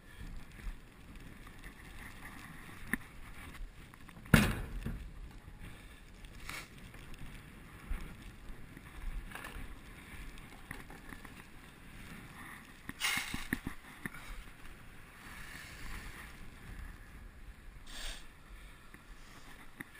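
Scattered knocks and clatter of a brass grain probe being handled on a covered hopper car's steel roof walkway and hatch. The loudest is a single sharp metal knock about four seconds in, with a brief rattling cluster just past the middle and lighter taps between.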